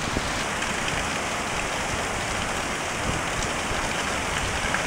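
Heavy downpour: rain pouring onto lawns and a street, a steady, even hiss.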